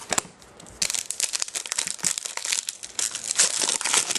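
Foil trading-card pack wrapper crinkling as it is handled and torn open, a dense crackle starting about a second in after a couple of light clicks.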